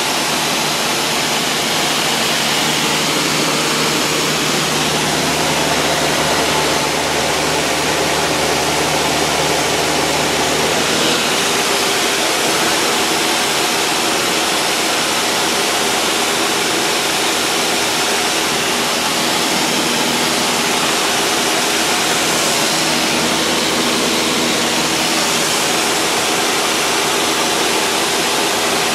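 Steady, loud cabin noise of a 1960s four-seat light airplane in flight: the engine and propeller drone under a constant rush of air. The engine note shifts slightly about eleven seconds in.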